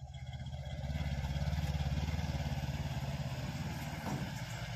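Engines of a mini goods truck and a pickup driving past close by, a low throbbing run that grows to its loudest about a second and a half in and then eases off slightly.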